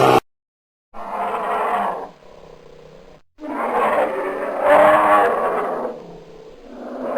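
Bear roaring in a series of rough roars: a short one, a quieter growl, then a longer roar that fades into a low growl, with another roar building near the end.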